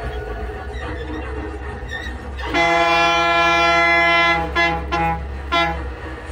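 A bus horn sounding in one long blast about two and a half seconds in, then two short toots, over the bus's engine and road noise heard from the cabin.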